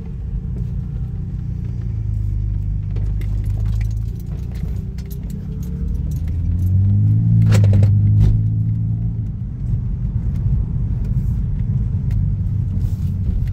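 BMW N52 inline-six, fitted with an N54 intake manifold, idling as heard from inside the car, with a light rapid ticking throughout. About six seconds in the revs rise briefly, then fall back to idle.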